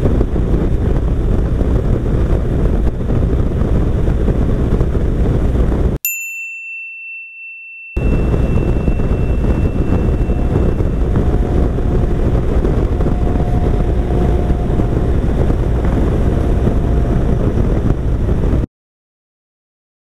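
Wind and engine noise of a 2014 BMW R1200RT motorcycle riding at highway speed. About six seconds in, the riding noise drops out for a single bright ding that rings away. The riding noise then resumes and cuts off abruptly to silence near the end.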